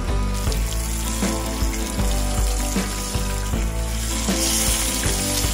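Background music with a steady beat, over a hiss that grows louder about four and a half seconds in.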